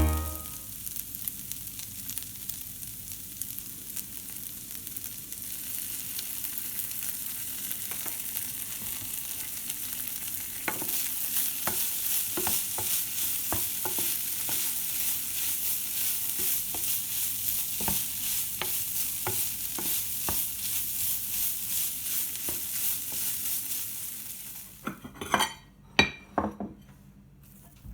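Food sizzling in a hot frying pan, with the scrape and tap of a utensil stirring it; the sizzle grows louder about a third of the way in. Near the end the sizzle stops and a few knocks follow.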